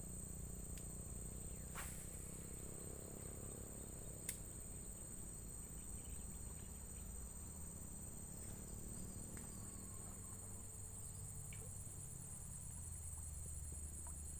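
Steady high-pitched drone of insects, with a second, rapidly pulsing insect trill joining about nine seconds in. A single sharp click comes about four seconds in.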